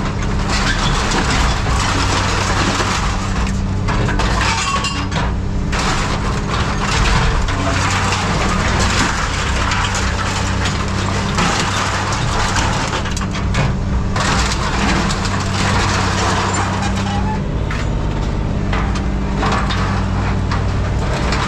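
A heavy machine's engine runs steadily under load while scrap metal is crushed and torn apart, with continual crunching, cracking and scraping.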